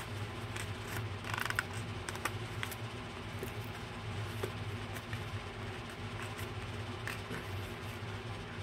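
A person chewing Toblerone chocolate with her mouth closed: faint scattered clicks and crunches, a short cluster of them about one and a half seconds in, over a steady low hum.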